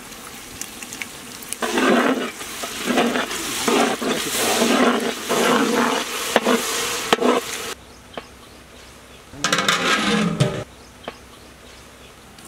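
Onions, green chillies and ginger-garlic paste sizzling in hot oil in a large pot, stirred with a ladle, with pulsing hissy frying noise. About ten seconds in comes a single short, low call from a water buffalo.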